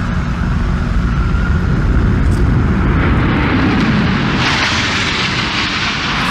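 Jet engines of a low-flying Boeing 767 airliner at high power: a rushing roar that builds over the last few seconds as the jet closes in, up to its crash into the tower at the very end. A steady low city rumble lies underneath.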